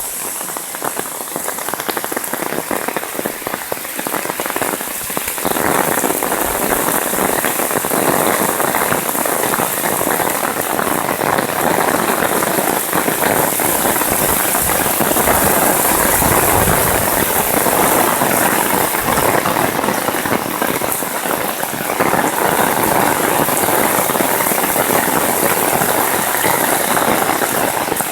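Heavy downpour of rain, a dense steady patter that grows louder about five seconds in.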